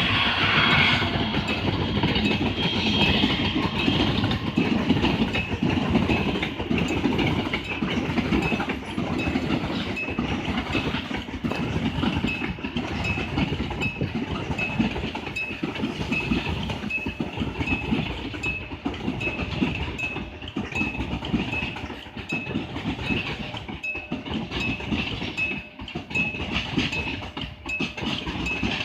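Cement freight train rolling past a level crossing: a steady rumble of wagons with wheels clacking over the rails. A held horn-like tone dies away about a second in, and through the second half the crossing's warning bell rings with a short high tone about once a second.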